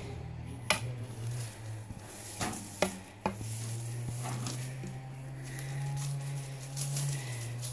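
Scuffing on landscaping gravel and rocks, with a few sharp clicks in the first three seconds or so, over a steady low hum.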